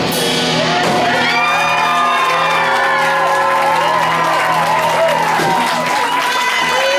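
Amateur rock band's instruments ringing out on the song's closing notes, with shouts and whoops from the audience over the music.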